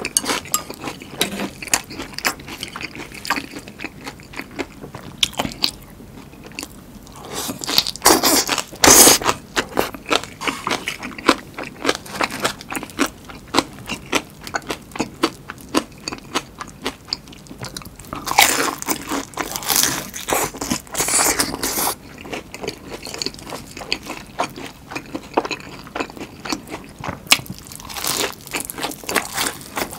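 Close-miked eating: crisp crunching bites and chewing of battered, deep-fried giant chili peppers, with rapid crackles from the fried batter and a couple of louder, longer crunching bites.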